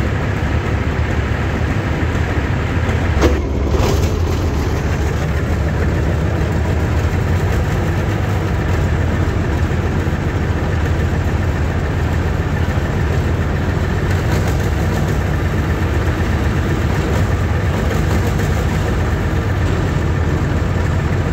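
Engine running steadily at idle, with one brief clank about three seconds in.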